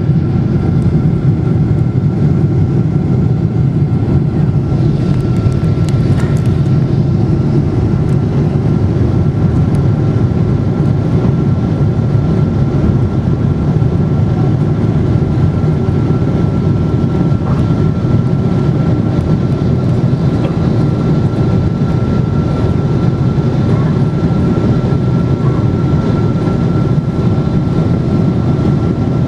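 Boeing 777-200 cabin noise during the climb after takeoff: the steady deep rush of the engines and airflow heard from a window seat over the wing, with a thin steady whine above it.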